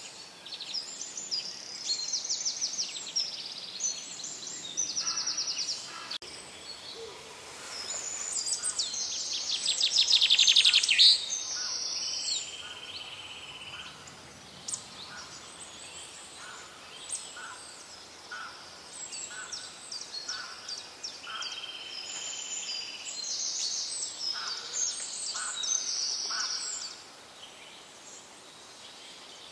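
Birds chirping and calling: repeated high chirps and rapid trills, with one louder burst of fast chatter about ten seconds in. Short calls repeat at roughly one-second intervals through the second half.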